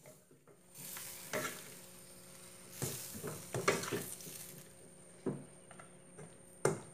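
Bitter gourd and chicken sizzling as they stir-fry in a stainless steel pan, with a spatula scraping and knocking against the pan several times as the food is turned.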